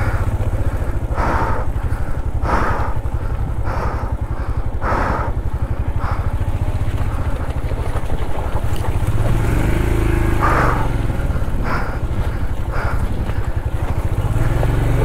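Motorcycle engine running at low revs as the bike creeps over loose rocks. Short rough noises recur about once a second in the first half and a few times near the end.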